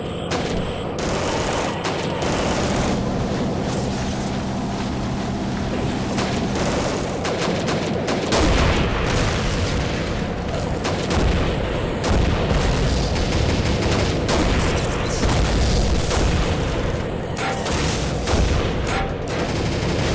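Dense battle sound effects: rapid gunfire in volleys mixed with cannon booms. The booms get heavier from about eight seconds in.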